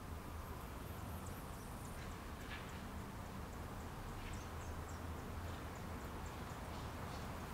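Faint outdoor background: a steady low rumble with scattered faint, short high ticks and chirps.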